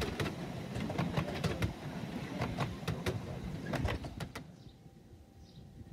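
Miniature railway train passing: a low rumble with many sharp clicks of wheels over rail joints, fading away about four seconds in. Small birds chirp faintly after it.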